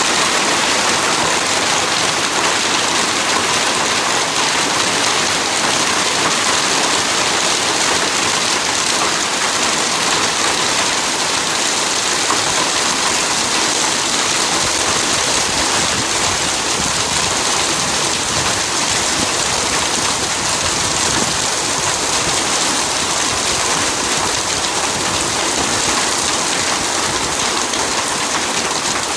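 Hail and heavy rain falling steadily in a dense, even downpour.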